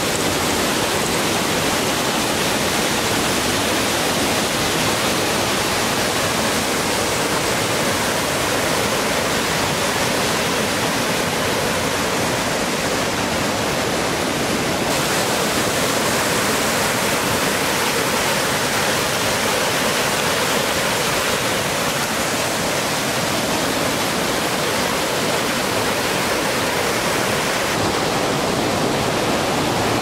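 Waterfall rushing: a loud, steady noise of falling water, unbroken throughout.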